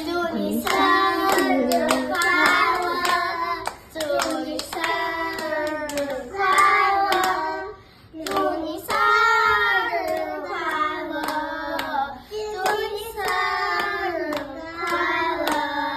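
A woman and young girls singing a birthday song together, clapping along in rhythm, in four sung lines.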